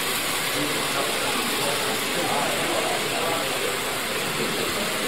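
Exhibition hall background: indistinct crowd chatter over a steady hiss, with no single sound standing out.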